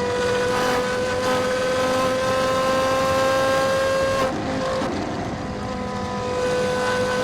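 Porsche Carrera GT's 5.7-litre V10 accelerating hard, its pitch climbing steadily. About four seconds in it breaks and drops on an upshift, then climbs again.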